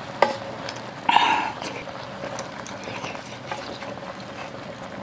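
Quiet mukbang eating sounds: wooden chopsticks clicking as food is picked from an electric hot-pot skillet, and mouth noises while eating. A sharp click comes just after the start and a short louder sound about a second in, over a faint steady hum.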